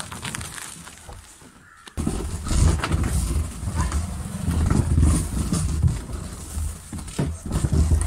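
Empty plastic drum being rolled over the ground: a hollow, uneven low rumble with scattered knocks, starting suddenly about two seconds in.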